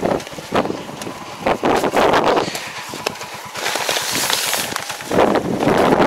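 Wind buffeting the microphone in uneven gusts, over the noise of a tractor and its mounted implement moving across a tilled field.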